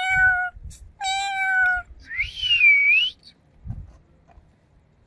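Cat meowing: two steady, evenly pitched meows, then a higher whistle-like call that rises, dips and rises again, with a few soft thumps.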